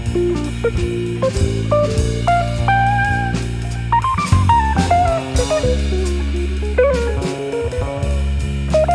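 Instrumental jazz-rock trio music: a guitar melody that slides between notes over bass guitar and a drum kit.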